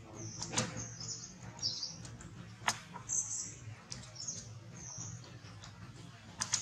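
Birds chirping on and off in short high calls, with a few sharp clicks.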